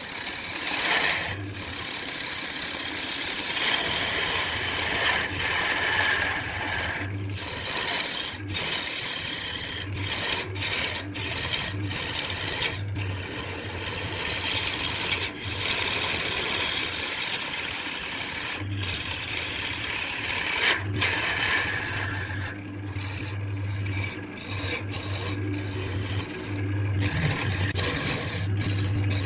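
Wood lathe with a tool rubbing and scraping against the spinning wood, giving a continuous rasping hiss over the motor's low steady hum, broken by many brief pauses.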